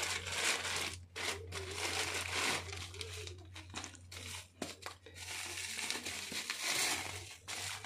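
Bubble wrap and plastic packaging crinkling and rustling in irregular handfuls as a parcel is unwrapped by hand, over a steady low hum.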